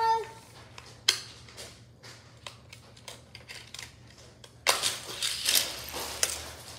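Small hard clicks and clatter of plastic toy track and a die-cast Hot Wheels car being handled at the track's launcher: a sharp snap about a second in, scattered light ticks, then a denser rattling clatter lasting a second or so about two-thirds of the way through.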